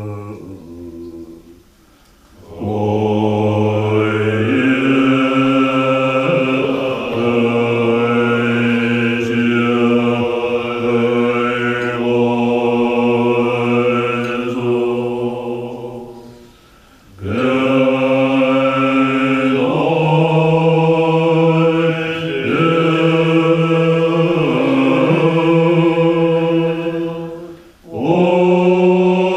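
Tibetan Buddhist monks chanting together in deep, sustained tones rich in overtones, in long phrases broken by brief breath pauses about two seconds in, midway and near the end.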